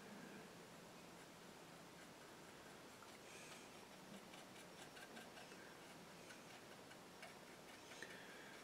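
Near silence: room tone with faint, scattered light ticks.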